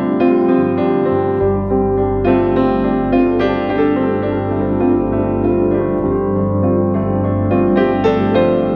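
Soft, slow piano music with sustained low bass notes underneath.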